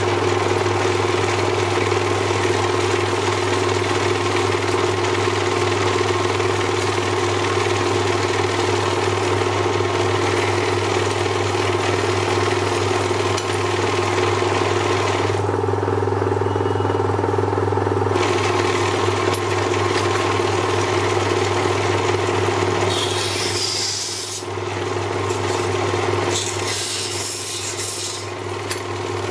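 Lathe motor humming steadily while a hand-held cutting tool scrapes ebonite hard rubber turning in the chuck. The scraping stops for a few seconds midway and comes back in sharper spells near the end.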